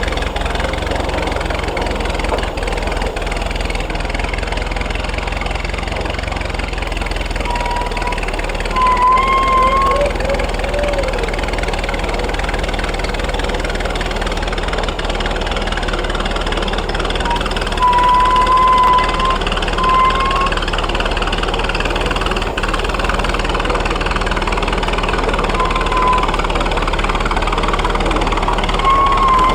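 1927 Fordson Good Roads road roller's four-cylinder engine running steadily. A short, wavering high squeal comes and goes several times over it.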